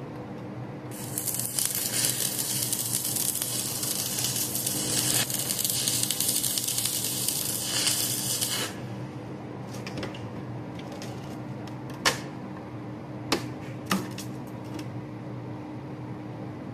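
Stick (SMAW) welding with an E6013 electrode on half-inch steel bar: the arc crackles and hisses steadily for about eight seconds, starting about a second in, then cuts off. A few sharp metal taps follow, from the small chipping tool knocking slag off the fresh bead.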